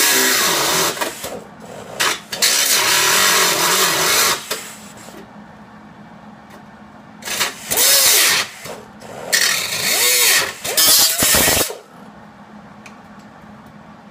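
Grinder cutting through a tack weld on a steel rocker panel, in several bursts of one to two seconds with short pauses between, the motor's pitch sweeping as it spins up and down.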